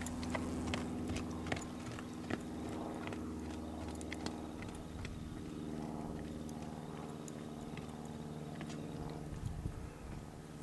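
Hooves of a Paint-bred gelding striking dry dirt: scattered sharp clicks, more of them in the first half and thinning out as the horse moves away, over a steady low hum.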